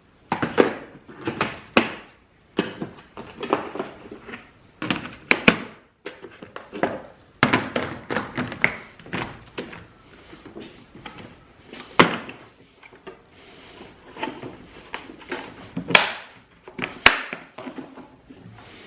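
Hand tools being taken apart and put away: an irregular run of knocks, clicks and thunks, with a few sharper clicks in the second half.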